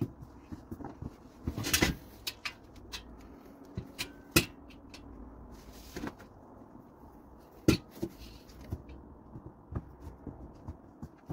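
Intermittent sharp knocks and clicks, with a brief scraping rustle about two seconds in: grill parts being handled and fitted during assembly of a gas grill.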